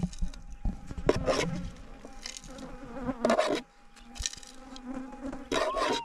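Flies buzzing around the microphone, with a few short bursts of scraping in the dirt where the target is being dug.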